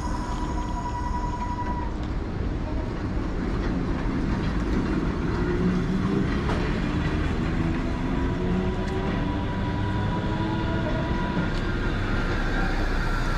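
Hiroden's Hanover tram running past close by, with the rumble of its wheels on the rails. Its motor whine rises in pitch as it gathers speed.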